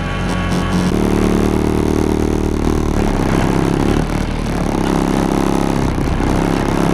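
Farm tractor engine running, with its revs rising twice for two to three seconds each, along with some mechanical clatter.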